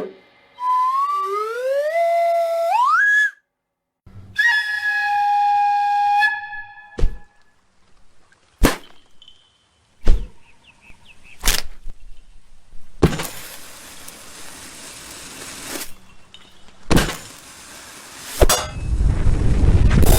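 A string of separate sound effects: a whistle gliding upward in steps, a held whistle-like tone, four sharp knocks spaced about a second or two apart, then two long bursts of hissing noise and a low rumble near the end.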